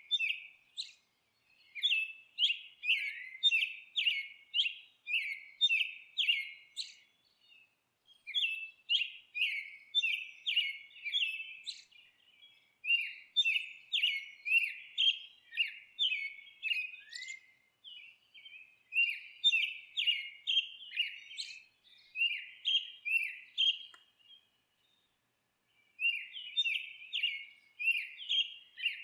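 A bird chirping in quick runs of short, repeated notes, about three a second. The phrases last a few seconds, with brief pauses between them.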